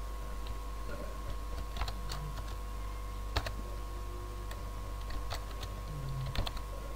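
Computer keyboard being typed on in short, irregular runs of key clicks over a steady background hum.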